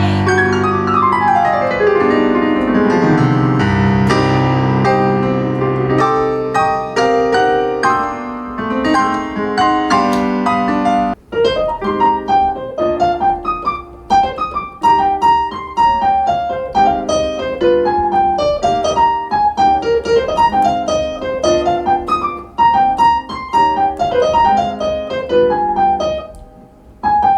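Keyboard played with a piano sound: a fast run sweeping down the keys at the start, held chords, then quick arpeggios rippling up and down over the chords.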